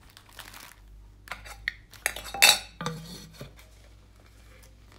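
Small hard objects clinking and rattling as diamond-painting supplies are handled, with a run of clatter between about one and three and a half seconds in, loudest about two and a half seconds in.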